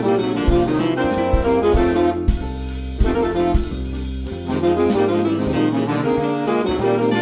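Jazz recording: brass and saxophone play over a bass line, with sharp drum strikes.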